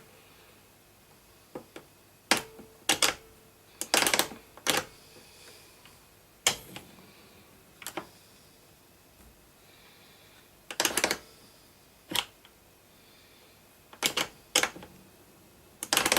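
Dansette Popular record player's speed-change mechanism being clicked through its positions: a series of sharp mechanical clicks, singly or in quick pairs, a second or more apart. The change is still a bit notchy now and again.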